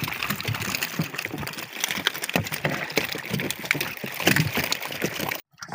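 Many freshly caught fish flopping in a boat's hold, a dense, irregular patter of wet slaps and splashes that cuts off abruptly near the end.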